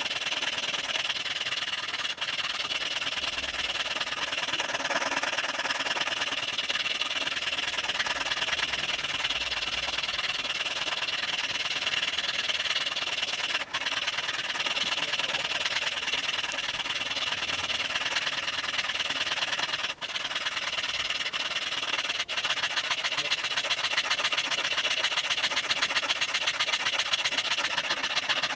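Motor-driven workshop power tool running steadily, with a dense high hiss and a fast flutter. The sound drops out for an instant a few times.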